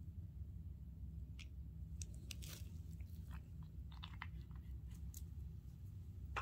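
Faint scattered clicks and crackles from a small plastic dropper bottle of silver-testing acid being handled and taken away from the touchstone, mostly in two clusters about two and four seconds in, over a low steady hum.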